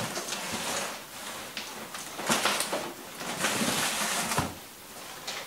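Cardboard boxes being handled: rustling and scraping as a smaller box is lifted out of a larger shipping carton, with a few light knocks.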